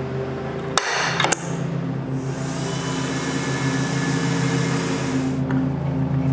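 Electric drill/driver running steadily, driving screws to fasten drawer slides to the drawers. A couple of clicks sound about a second in, and a higher hiss joins the motor hum from about two seconds in until about five and a half.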